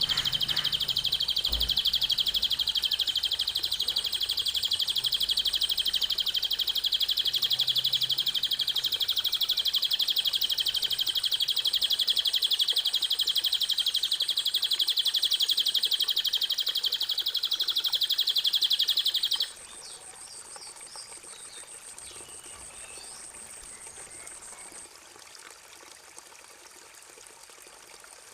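Songbird tutor recording: a loud, unbroken, very rapid high-pitched trill that cuts off abruptly about two-thirds of the way through, leaving faint scattered chirps over a soft, water-like trickle.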